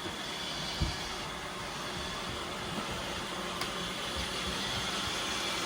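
Robot vacuum cleaners running, a steady whirring hiss of motor and suction, with one soft thump about a second in.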